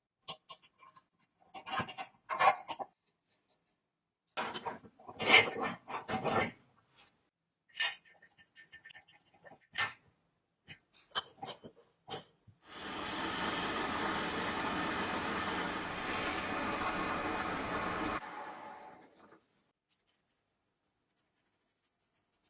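Short, scattered scraping and rubbing noises, then a steady hiss lasting about five seconds that cuts off sharply.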